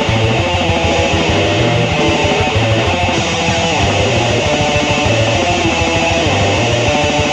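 Raw, lo-fi black metal: distorted electric guitars over bass, loud and dense, with a low bass figure repeating at an even pace.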